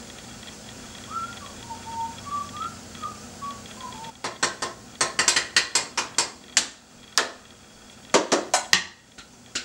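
A man whistles a short tune of wavering notes for a few seconds. About four seconds in it gives way to a run of sharp metallic clinks and clanks as a utensil is worked in a cooking pot and the pot lid is handled.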